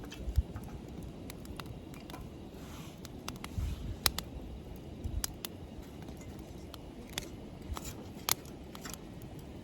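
Wood fire in a fire pit crackling, with irregular sharp pops and a few dull knocks over a steady low background rumble.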